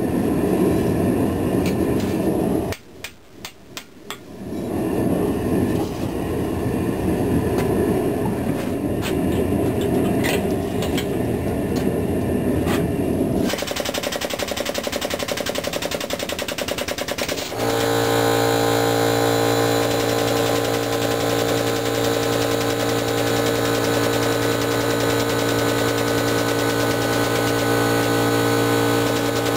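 A steady rushing noise that drops out for a second or two a few seconds in. About two-thirds of the way through it gives way to the steady hum of a hydraulic forging press's power unit, with several fixed tones, as the press squeezes the hot blade.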